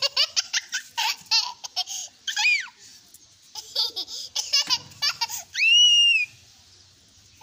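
A dog's rapid, high-pitched yips and whines. A long whine rises and falls about two and a half seconds in, and a louder one comes near six seconds.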